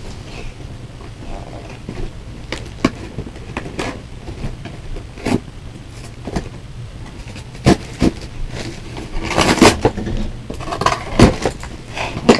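A cardboard toy box being handled and opened by hand: scattered taps and knocks, with a burst of rustling packaging about nine to ten seconds in.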